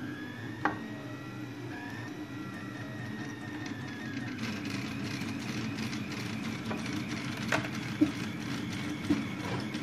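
A 3D printer running: a steady low hum with a thin whine from its stepper motors that slowly glides in pitch. A few light clicks come less than a second in and twice near the end.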